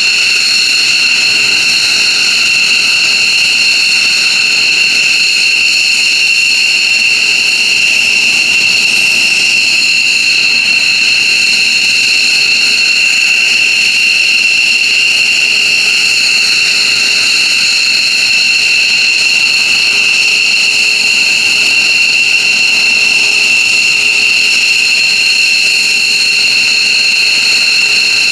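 F-15J Eagle's twin turbofan engines running steadily on the ground, a high-pitched whistling whine over a rushing noise, with no change in pitch or loudness.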